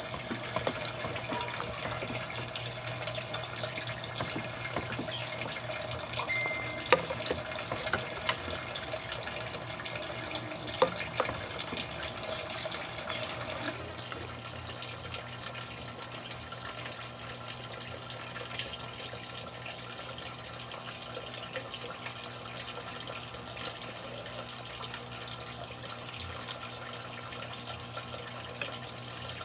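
Water running steadily, as from a kitchen tap, with scattered clinks of pots and utensils.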